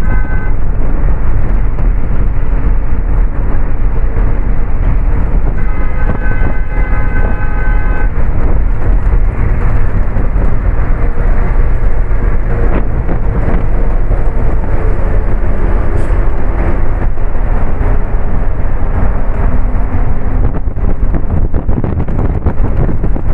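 Inside the passenger cabin of a moving bus: loud, steady engine and road rumble. A vehicle horn sounds briefly at the start and again for about two seconds around six seconds in.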